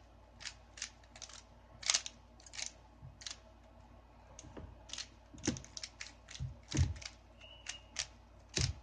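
Plastic Rubik's cube being turned fast by hand: layers snapping round in quick, irregular clicks and clacks, with a few duller knocks from handling the cube in the second half.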